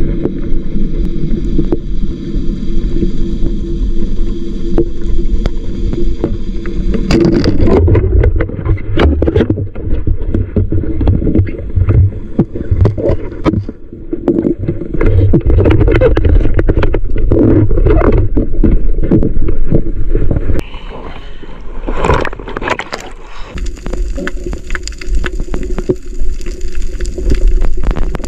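Boat motor heard underwater through the camera housing: a steady drone with several even tones for the first several seconds and again near the end. In between comes a long stretch of dense clicking and crackling.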